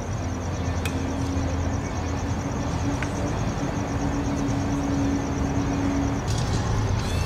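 Steady outdoor background noise with a low steady hum that stops about six seconds in.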